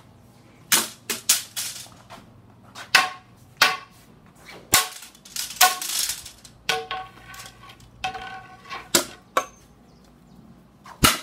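A long pole striking a cardboard box again and again to smash it open: about fifteen sharp, irregular whacks, some landing with a short metallic clanging ring.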